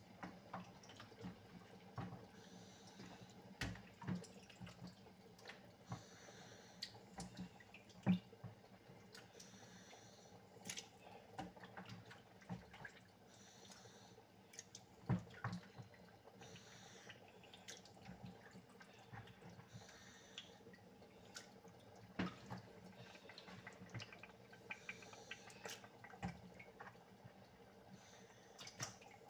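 Pot of thick Nigerian tomato stew simmering, with quiet, irregular soft plops and pops as bubbles break the oily surface, over a faint steady hum.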